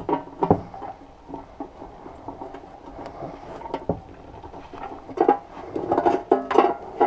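Clicks, knocks and rattles of hand work on a sheet-metal battery box and electronics tray, as a screwdriver and wired parts are handled against it. A cluster of louder knocks with a slight metallic ring comes near the end.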